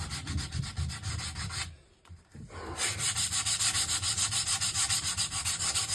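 Hand sanding of an old wooden table with sandpaper: quick, even back-and-forth strokes. The sanding stops for a moment about two seconds in, then picks up again louder.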